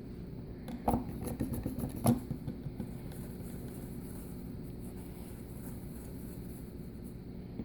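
A quick run of small clicks and scrapes from nail-stamping tools being worked, the loudest knocks about one and two seconds in, over a steady low hum.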